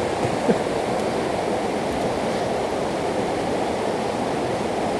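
River running high after rain, an even rushing of fast water past the bank, with a brief low thump about half a second in.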